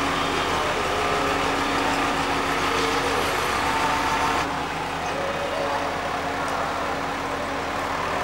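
Heavy diesel engine running steadily, with people's voices in the background. The sound changes abruptly about four and a half seconds in.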